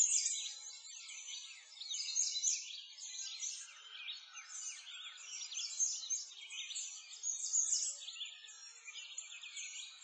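Many small birds singing at once: a dense chorus of quick, high chirps overlapping one another.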